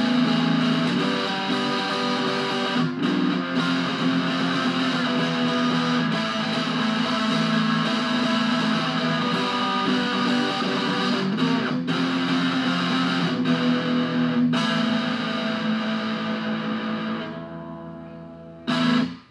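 Electric guitar with effects playing sustained, ringing chords over a steady low note. It fades out over the last couple of seconds, with one short loud burst just before it stops.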